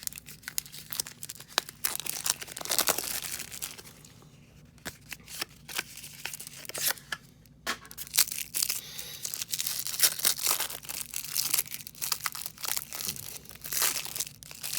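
A trading card pack wrapper being torn open and crinkled by hand, with irregular crackling and small clicks as the cards are handled.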